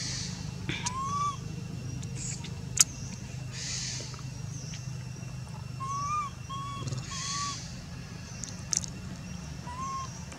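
A handful of short, arched chirping animal calls, one about a second in, three close together around the middle, and one near the end, with a sharp click about three seconds in over a steady low hum.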